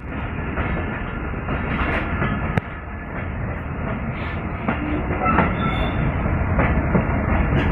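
Passenger train coach running along the track, heard from its open doorway: a steady rumble and clatter of wheels on rail, with a sharp click about two and a half seconds in and a few fainter clacks after.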